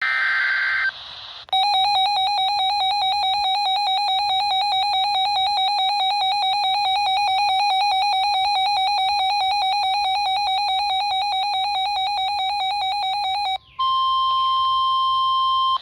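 Weather radio alert tones: a short noisy data-like burst, then an electronic tone warbling rapidly between two pitches for about twelve seconds. It breaks off, and a steady single alert tone near 1 kHz follows, the NOAA Weather Radio warning alarm tone that comes before a spoken warning.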